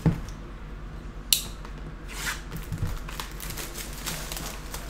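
Clear plastic shrink wrap being torn off a trading-card hobby box and crumpled in the hands, crinkling, with a sharp snap about a second in.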